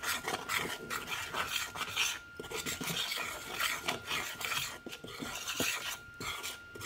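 A metal spoon stirring and scraping a dry flour mixture in a stainless steel bowl: a run of short, uneven scraping strokes of spoon against metal.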